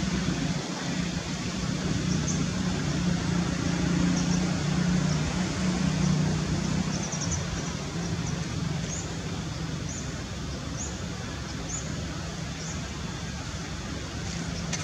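Steady background traffic noise with a low engine hum that weakens after about eight seconds. Short high chirps repeat about once a second over it.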